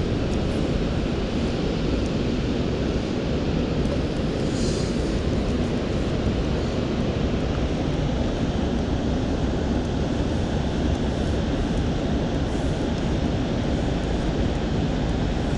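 Steady rush of the Arno pouring over a weir.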